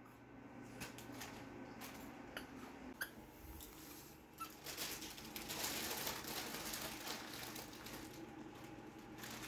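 Faint rustling and scuffing of a small dog wrestling a plush toy on carpet while a hand rubs its fur, with scattered soft clicks and two short, high squeaks. The rustling thickens from about four and a half seconds in.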